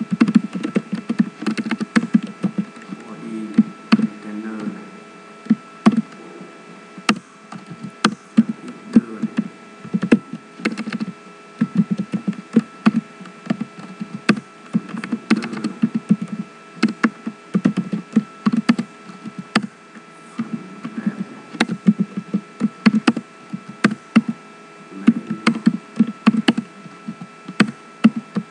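Typing on a computer keyboard in quick, irregular bursts of keystrokes with short pauses, over a steady hum.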